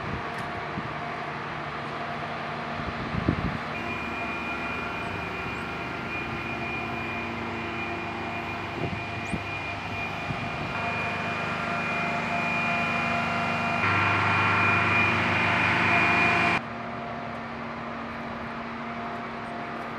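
Steady whine of aircraft turbine engines running on an airfield flight line, a high tone over a low hum. It grows louder through the second half, then drops abruptly near the end. A brief knock comes about three seconds in.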